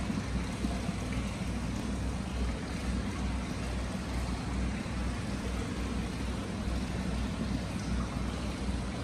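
Free-flowing hot spring water pouring steadily from a stone basin into an indoor bath, a continuous rushing splash with a deep low rumble and no breaks.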